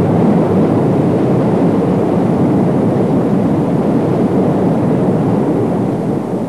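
Waterfall sound effect: a loud, steady rush of falling water.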